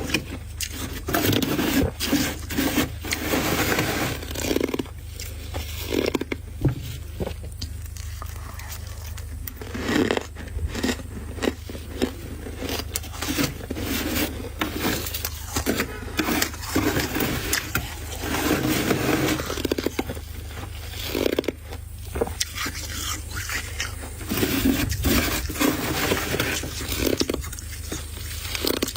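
Freezer frost being scraped by hand, irregular scratchy scraping with many short crunches, over a steady low hum.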